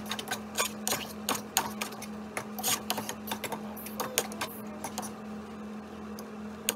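Irregular light clicks and knocks of kitchen utensils against cookware, busiest in the first few seconds, over a steady low hum.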